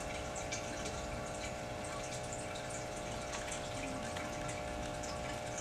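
Steady machine hum: an even hiss with several steady tones that does not change, the sound of a small motor running.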